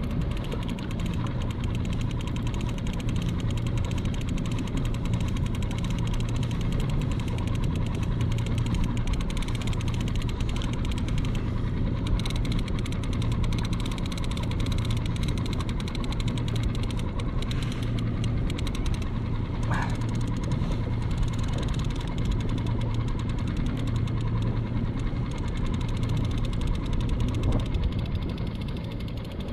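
Small outboard motor running steadily at idle, with fine fast clicking from the conventional trolling reel as a hooked fish is played; a short squeak comes about two-thirds of the way through.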